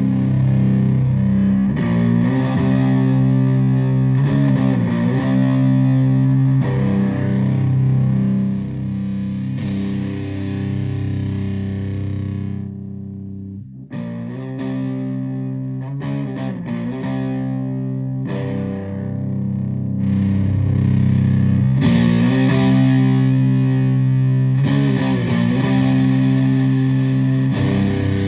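Electric guitar, a Stratocaster tuned to drop C, played through a Russian Big Muff-style fuzz pedal with blend and octave controls into a Fender Twin Reverb-type amp. Heavy fuzzed chords ring out with slides between them. One chord is left to die away about thirteen seconds in before the playing picks up again.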